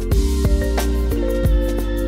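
Background music with a steady beat over sustained, held notes.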